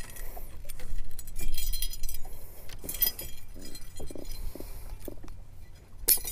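Metal fishing tackle clinking and rattling as it is handled, a string of light, irregular clicks with a louder cluster of clinks near the end.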